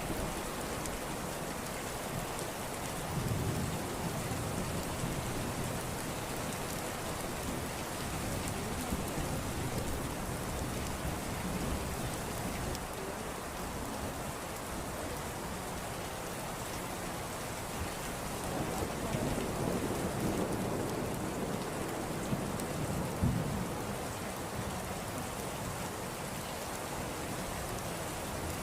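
Steady rain with low rumbles of thunder a few times, around the start, past the middle and near the two-thirds mark.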